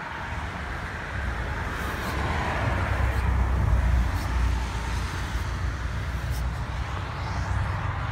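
Road traffic passing a car lot: a steady low rumble and tyre hiss, with one vehicle going by that swells loudest about three to four seconds in and then fades.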